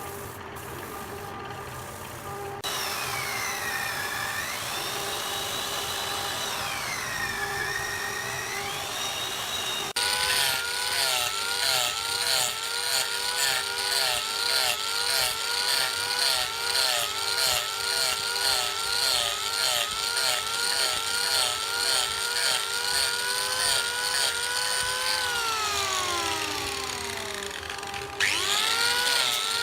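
CNC wood lathe running, its drive motors whining in pitch glides that follow the tool's moves. From about ten seconds in it is louder, and the whine warbles up and down in a quick regular pattern over a steady noisy bed. Near the end the whine slides down, then starts again and rises.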